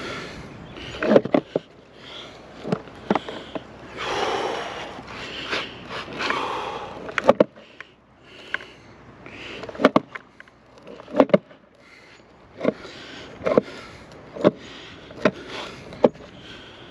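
Skateboard on a concrete sidewalk: sharp clacks about once a second, some in quick pairs, with stretches of breathy hiss between them.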